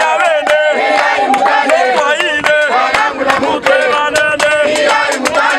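A group of people singing and chanting together in many voices, with frequent sharp percussive hits throughout.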